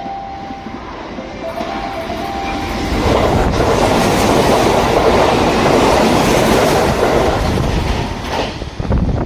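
Sanyo Electric Railway train passing through the station without stopping. The rumble and wheel clatter build up about three seconds in, stay loud for several seconds, then fade near the end.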